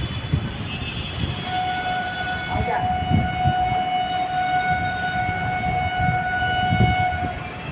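An electric locomotive's horn sounds one long steady note for about six seconds over the rumble of a train on the rails.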